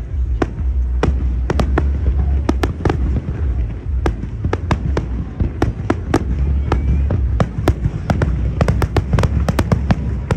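Fireworks exploding overhead: a fast, irregular run of sharp bangs and crackles over a continuous deep rumble of bursts.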